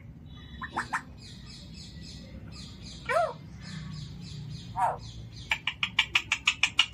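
Pet parrot calling: a few short separate chirps and calls over faint high twittering, then a quick run of sharp clicking chirps, about eight a second, near the end.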